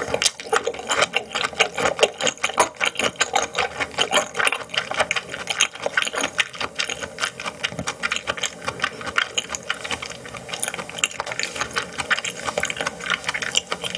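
Close-miked chewing and mouth smacking: a dense, irregular run of wet clicks, several a second, with no pause.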